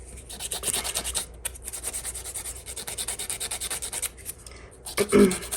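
Nail file or buffer scraping back and forth over natural fingernails in quick, even strokes, roughening the nail surface so press-on nail glue will grip. There is a brief louder bump about five seconds in.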